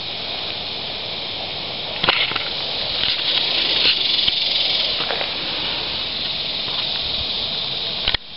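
Steady high-pitched outdoor hiss, with a few faint clicks from the camera being handled.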